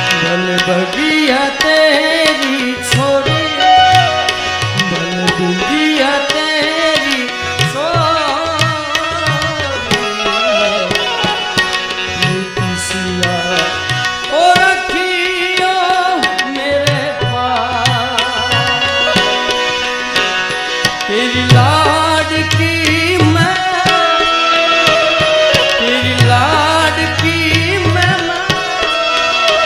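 Male voice singing a Gujarati song to his own harmonium, with tabla keeping the rhythm.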